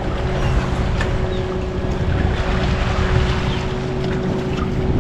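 Outboard boat motor running at a steady idle, its hum overlaid by wind on the microphone and water noise.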